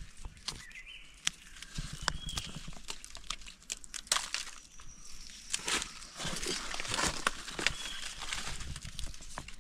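Dry leaves and woody debris crackling and rustling with many sharp snaps and clicks as log mushrooms are pulled and broken off dead wood by hand. The crackling gets denser about halfway through.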